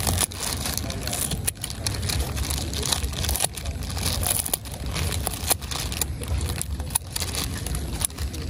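Kitchen scissors cutting through the crisp, blistered skin of roast pork belly: an irregular run of sharp crunchy crackles and snips, over a low steady rumble.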